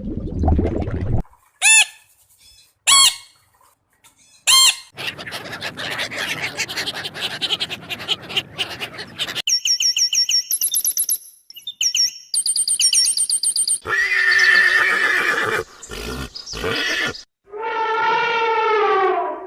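A string of different animal calls cut one after another: three short high calls, a stretch of rough noise, rapid high-pitched repeated calls, then a long call that falls in pitch near the end.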